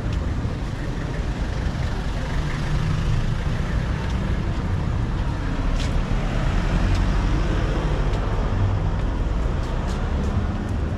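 Street traffic: motor vehicles running past with a steady low rumble, and a brief sharp click about six seconds in.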